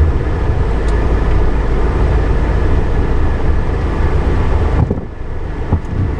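Car driving, with a steady low road and engine rumble. About five seconds in it briefly turns quieter and duller.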